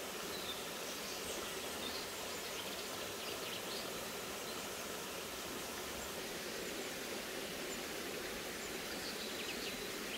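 Steady rush of a forest stream, with faint bird chirps now and then.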